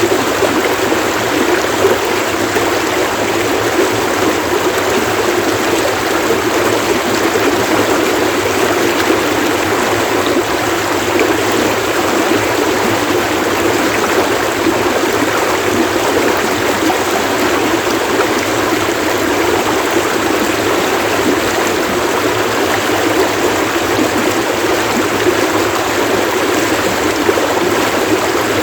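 Running water splashing and burbling in a steady, unbroken rush.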